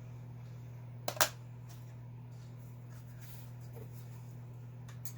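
A steady low electrical hum, with two sharp clicks close together about a second in and a few faint ticks later, typical of small parts being handled on a workbench.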